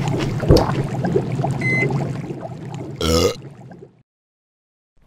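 Steady bubbling, rushing noise of simmering hot-pot broth over a low hum, with a thump about half a second in and a short electronic beep from the cooker's power button near the middle. A brief throaty, voice-like sound follows, and then the noise fades out.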